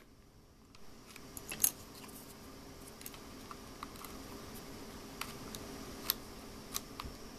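Small sharp clicks and taps of an SD card being handled and pushed into a laptop's card slot, the loudest about one and a half seconds in, others scattered through, over a faint steady hum.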